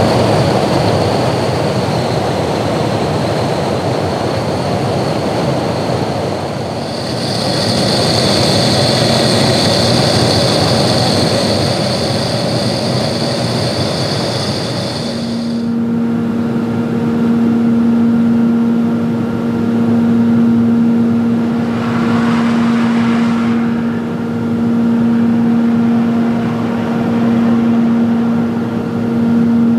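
Aircraft engine noise in flight: a loud, steady rushing noise with a high turbine whine, which changes abruptly about 7 s and 15 s in. After that it becomes a steady low droning hum that swells and fades slowly.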